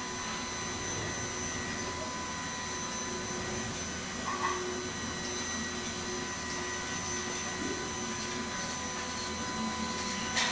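Enclosed five-axis CNC machining center running: a steady whirring and rushing with several constant high-pitched whines from the spindle and drives, and a faint brief click about four and a half seconds in and another near the end.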